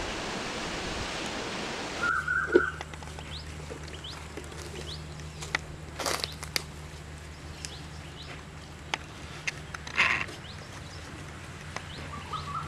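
A rushing hiss for about the first two seconds cuts off abruptly. Then small birds chirp and warble, with a few sharp knocks and scrapes as fish are handled on a metal plate, over a steady low hum.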